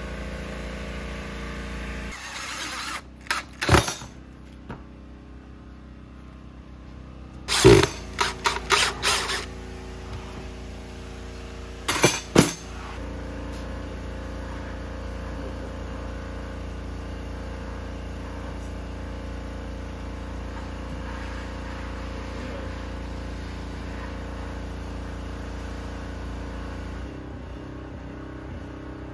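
Sharp knocks on wood from building a wooden shelf, in three short groups with a quick run of about half a dozen in the middle, over a steady machine hum.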